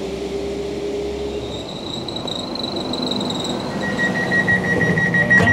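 Transport for Wales diesel multiple unit pulling into the platform and slowing to a stop. A steady low hum cuts out about a second and a half in, a thin high whine follows, and a steady high tone sounds from about four seconds in as the running noise grows louder.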